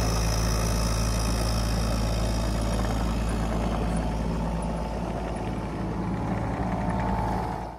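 Kubota U35 mini excavator's diesel engine running steadily, already started, with a faint whine joining in near the end.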